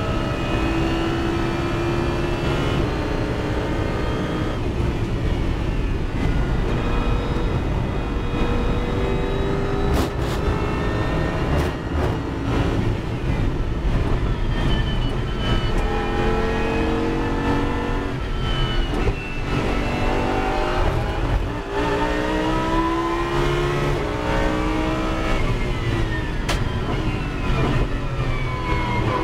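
Lamborghini Super Trofeo race car's V10 heard from inside the cabin at racing speed, its pitch rising and falling through gear changes. Near the end the pitch falls as the car shifts down under braking.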